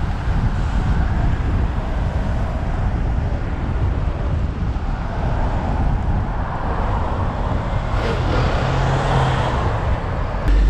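Wind rushing over the microphone of a camera on a moving bicycle, mixed with road traffic. A passing vehicle swells up about six seconds in and fades again near the end.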